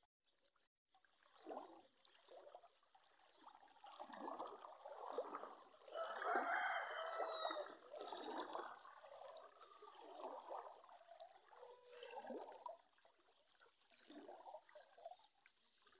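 Floodwater sloshing and gurgling in irregular surges, loudest around the middle.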